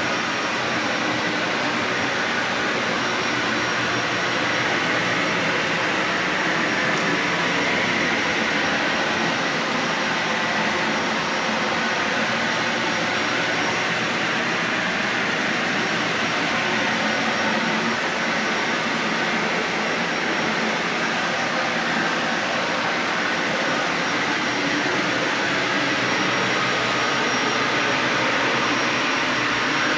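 Dyson Ball Animal 3 Extra upright vacuum cleaner running steadily while being pushed over carpet, a continuous even rushing noise.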